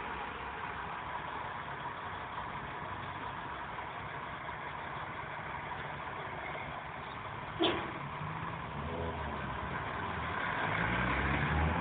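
Peugeot car's engine and road noise heard from inside the cabin, a steady rumble, with one short sharp sound about two thirds of the way through; near the end the engine note rises and grows louder as the car accelerates.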